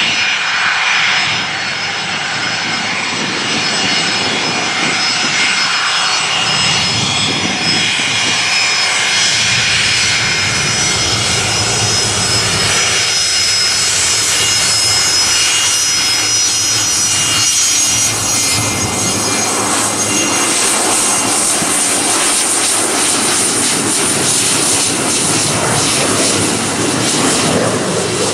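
Rear-mounted turbofan engines of a Fokker twin-jet airliner running at taxi power as it rolls past: a steady jet rush with a high whine, the high whine growing stronger in the second half as the engine exhausts turn toward the listener.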